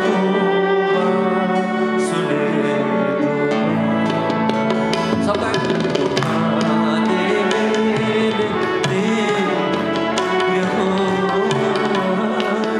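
Instrumental worship music: held keyboard-like chords over a steady beat on Indian hand drums.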